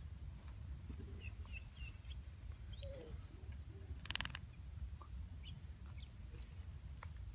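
Faint bird chirps and one short rattling call about four seconds in, over a low steady rumble.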